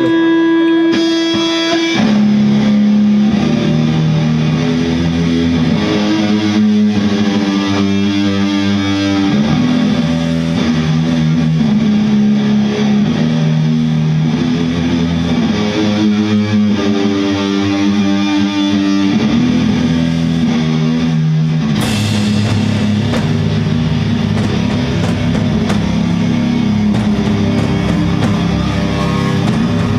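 Live doom metal band playing a slow, heavily distorted electric guitar riff in long held notes, after a single sustained note at the start. About twenty-two seconds in, cymbals crash in and the full band plays on, denser and brighter.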